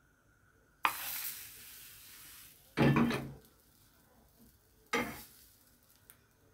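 Crepe batter sizzling as it hits a hot nonstick frying pan, starting suddenly about a second in and fading over a couple of seconds. A dull knock of cookware follows, then a sharper knock of the pan and ladle about five seconds in.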